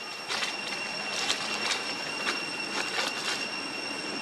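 A steady high-pitched whine with a fainter tone above it over a constant hiss, and about ten short crackles and scuffs of dry leaves and stone as small macaques scramble over them.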